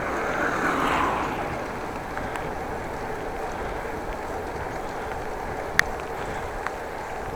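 Steady rushing of wind and bicycle tyre noise on a bike-mounted action camera while riding, louder for about the first second, with one sharp tick near the end.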